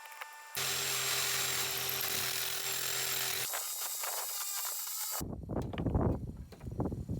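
A power tool running while an old air conditioner is taken apart, heard in short clips that cut abruptly one into the next; near the end, a stretch of uneven low rumbling and knocking.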